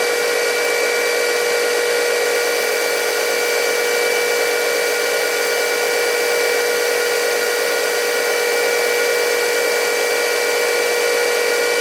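Metal lathe running steadily with a constant whine while taking a pass on aluminum.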